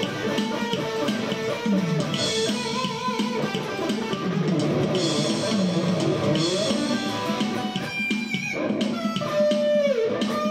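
Music played back: electric guitar over a drum kit, with some sliding, bent guitar notes near the end.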